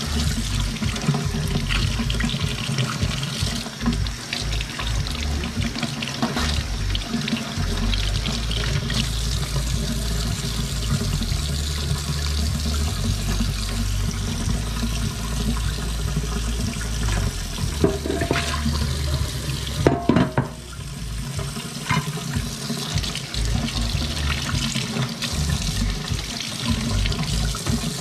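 Kitchen faucet running a steady stream of water into a stainless steel sink, splashing over snow crab legs rinsed under it by hand. A few sharp knocks come about two thirds of the way through.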